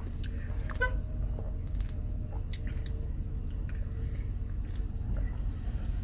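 A person sipping from a can of Mountain Dew Game Fuel and swallowing, with scattered small clicks from the can's slide-back spout, over a steady low hum.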